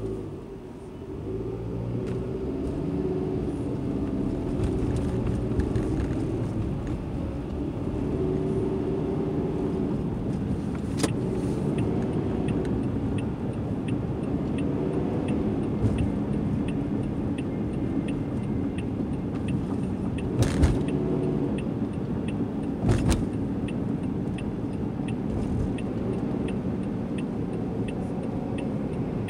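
Car interior noise as the car pulls away and speeds up, the engine rising in pitch over the first two seconds, then a steady low rumble of engine and tyres while cruising. A few sharp knocks or clicks stand out, about eleven seconds in and twice more a little after twenty seconds.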